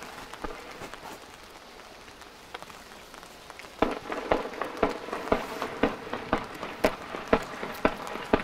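Fireworks launched in rapid succession from the ground: after a quieter stretch with a few faint pops, a steady string of sharp launch reports starts about four seconds in, roughly two per second.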